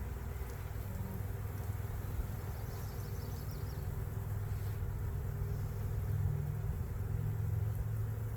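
Honey bees buzzing over an opened hive, a steady low hum that swells a little in the second half.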